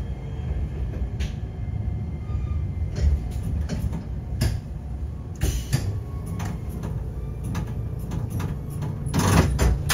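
Iyotetsu city tram running on its track, heard from inside the car: a steady low rumble with irregular sharp knocks from the wheels on the rails. A louder rush of noise comes about nine seconds in as the tram comes into the terminus.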